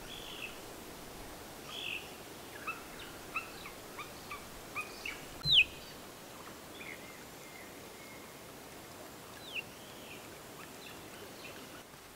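Bush birds calling: a string of short chirps and whistles, the loudest a sharp downward whistle a little past the middle.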